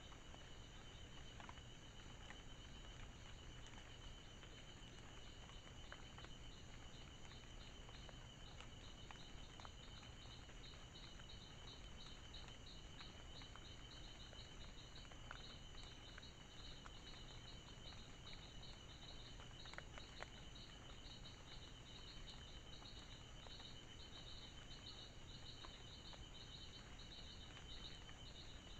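Faint night-time insect chorus: one steady high trill and a higher chirp pulsing a few times a second, with a few faint scattered clicks.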